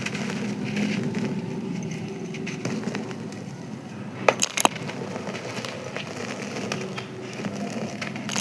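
Dry sand-cement pieces being crumbled and crushed, a continuous gritty crackle of small clicks, with three sharp clinks a little past the middle.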